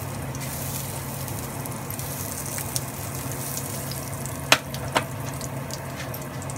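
Whole cumin seeds and cinnamon sizzling steadily in hot mustard oil in a frying pan, with two sharp clicks about two-thirds of the way through.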